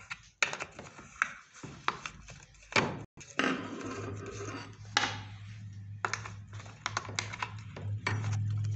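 Metal-on-metal clicks, taps and knocks from a combination spark-plug wrench turning and coming off the chainsaw's bar-cover nuts, and from the steel guide bar and chain being handled: an irregular string of sharp ticks and clinks.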